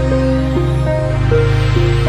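Background music: a short melody repeating in quick stepped notes over a steady low bass, with the bass changing about a second in.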